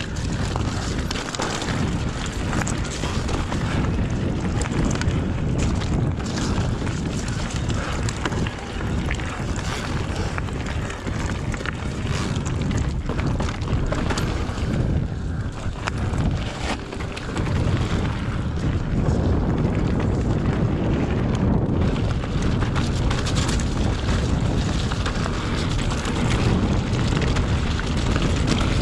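Mountain bike riding down a rough dirt trail: a steady rumble of wind on the microphone and tyres on the ground, with many quick knocks and rattles from the bike over bumps.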